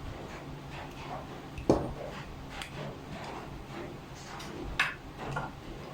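Scattered light clicks and knocks of metal tools and bike parts being handled while a handlebar stem is fitted, with a sharper click about two seconds in and another near the end.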